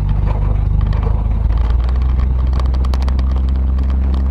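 1977 Ford Ranchero GT's 351 Windsor V8 running steadily while driving, its low engine note shifting less than halfway in. The freshly rebuilt carburetor has it running at its normal 180 degrees, neither lean nor rich.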